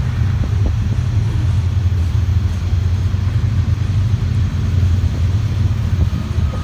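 Freight cars of a manifest train rolling past on the rails below, a steady low rumble with a few faint clicks near the start.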